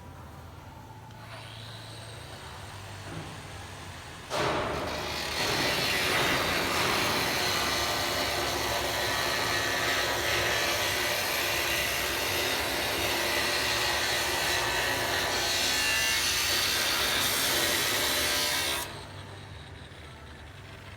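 A power tool cutting metal, running loud and steady for about fifteen seconds. It starts suddenly a few seconds in and cuts off abruptly near the end.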